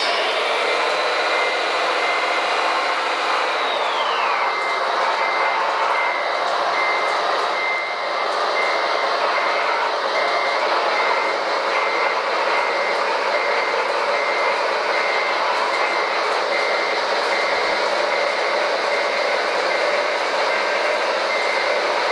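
Reversing beeper on a radio-controlled construction model, beeping evenly over the steady whine and hiss of the models' electric motors and hydraulics; a high whine falls in pitch about four seconds in, just before the beeping starts.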